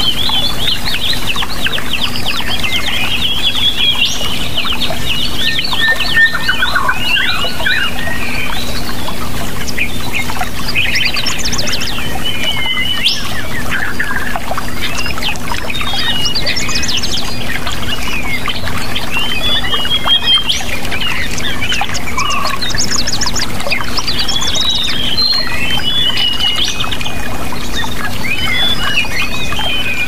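Many birds chirping and singing at once, with rapid repeated trills and sharp calls overlapping without a break, over a steady rush of water and a faint low hum.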